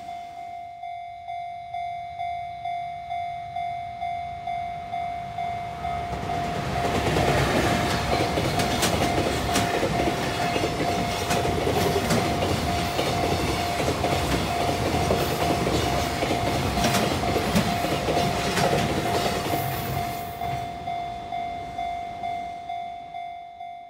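Recording of a real Japanese container freight train passing a level crossing. A crossing bell dings steadily, about one and a half times a second. About six seconds in the train rolls past with its wheels clacking over rail joints, and it fades away after about fifteen seconds.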